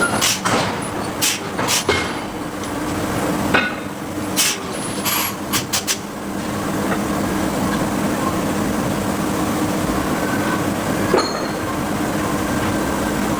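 Sharp metallic blows of a forging hammer on steel, about nine at irregular spacing in the first six seconds and one more about eleven seconds in, over a steady machine hum.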